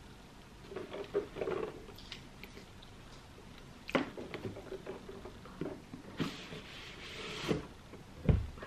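A cardboard product box being handled: scattered taps and rustles, then a longer scraping rustle about six seconds in as the box is slid open. A sharp thump comes near the end.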